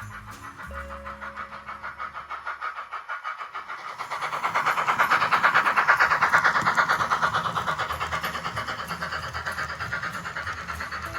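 Model train running on the track with a rapid, steady clicking of wheels over rail joints. It grows louder as the train comes near, is loudest about six seconds in, then fades as it moves away.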